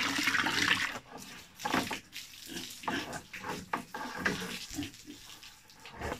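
Water from a hose spraying loudly for about a second, then splashing and spattering irregularly as pigs in a pen are hosed down for a bath.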